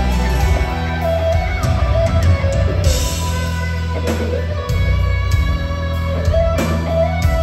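Electric guitar playing a lead melody of long held notes over bass and drums from a live rock band. Two cymbal crashes come about three seconds in and again near the end.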